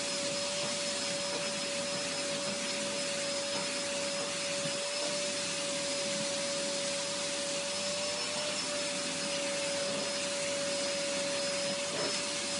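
Vacuum cleaner running with a steady whine, its hose nozzle held against a long-haired cat's fur.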